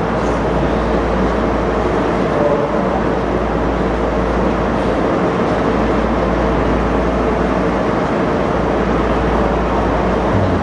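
Steady room noise with no speech: an even rush with a low hum under it and a faint steady tone, unchanging throughout.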